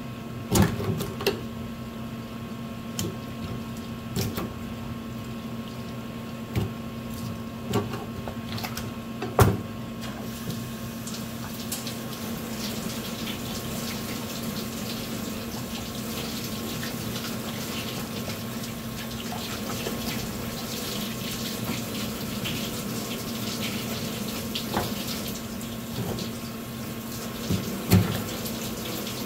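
A kitchen knife knocking sharply on a plastic cutting board several times, the loudest about nine seconds in, as a large olive flounder is cut open to bleed it. Then water from a hose runs steadily over the fish and into a stainless sink, with one more knock near the end and a steady low hum underneath.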